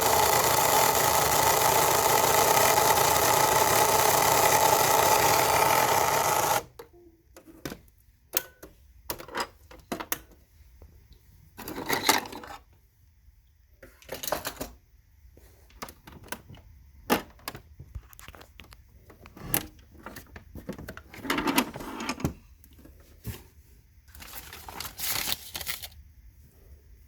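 Cricut Explore Air 2 cutting machine running with a steady grinding noise, cutting off suddenly about six and a half seconds in. After that come scattered clicks and a few short rustles.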